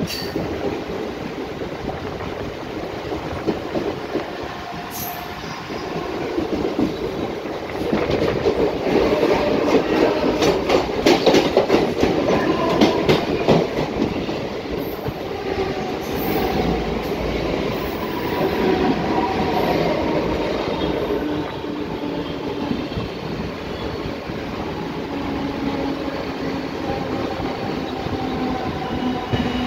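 Mumbai suburban electric local train running, heard from its open doorway: a steady rumble of wheels on rail with clacks over the rail joints. From about 8 to 14 seconds it grows louder with rapid clacking as another local train passes close alongside, and a steady whining tone comes in during the second half.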